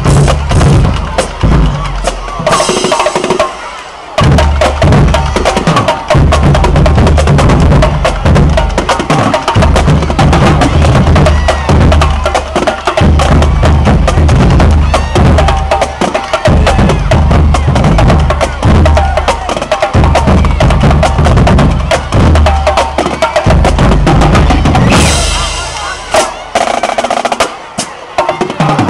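High school marching drum line playing a cadence: snare drums and tenor drums in rapid strikes and rolls over pounding marching bass drums, with cymbals. The bass drums drop out briefly twice, near the start and near the end.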